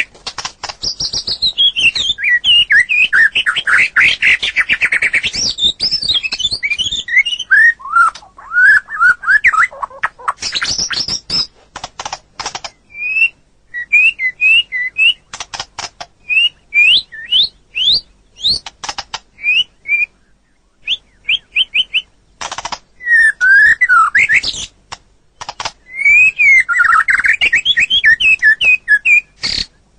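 White-rumped shama (murai batu) singing a varied song of rapid whistles, trills and sharp clicking notes. The song thins to short upswept notes and clicks between phrases midway through, then runs into dense warbling again near the end.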